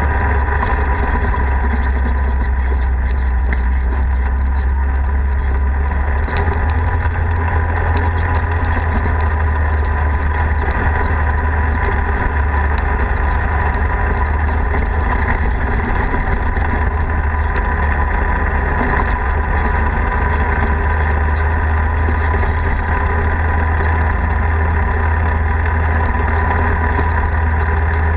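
Polaris RZR side-by-side driving along a dirt road: a loud, steady engine drone with a strong low hum that holds at an even pitch throughout.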